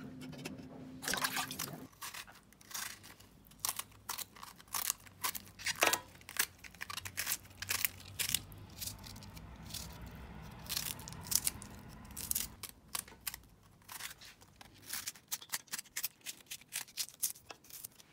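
A knife slicing fresh okra pods held in the hand, giving an irregular run of crisp little cuts, several a second. Before that, water runs and drips in the sink for a moment, then stops abruptly.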